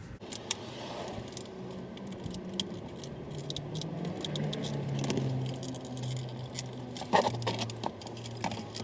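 Light plastic clicks and rattles as a Toyota RAV4's window-switch panel is worked loose from the door trim's clips, with a sharper cluster of clicks about seven seconds in.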